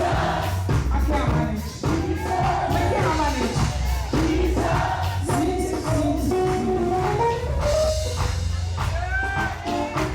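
Live gospel praise music: singers over a band with bass, drums and tambourine.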